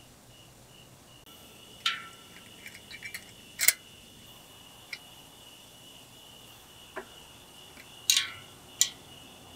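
A bicycle chain and rear derailleur handled by hand: scattered sharp metallic clicks and clinks, the loudest a little under four seconds in and about eight seconds in. Crickets chirp steadily underneath.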